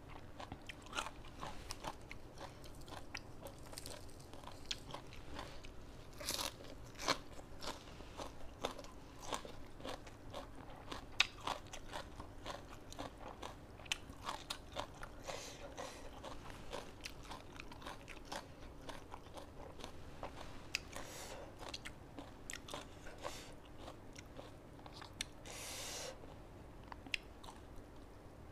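Close-up eating sounds: irregular crunching and chewing of papaya salad with chicken feet and raw vegetables. Two short breathy bursts come about a quarter of the way in and near the end.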